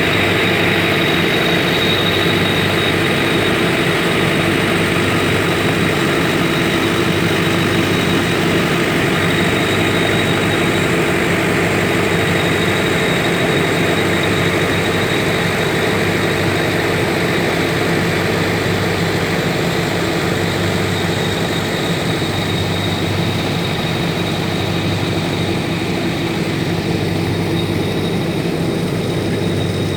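Site generators running steadily, a constant engine hum with a thin high whine above it, as they power the pumps that drain water out of the foundation pit.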